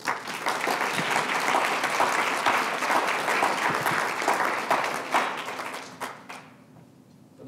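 Audience applauding, dense clapping that fades out about six seconds in.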